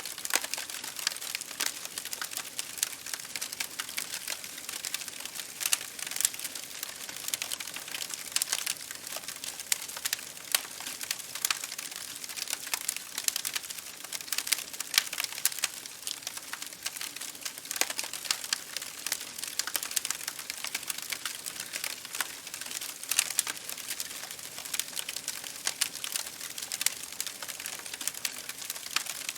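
Wood fire burning, crackling and popping irregularly over a steady hiss.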